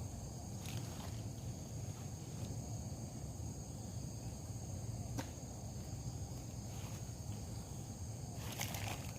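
Steady, high-pitched chorus of crickets, with a few faint scattered clicks and a short cluster of them near the end.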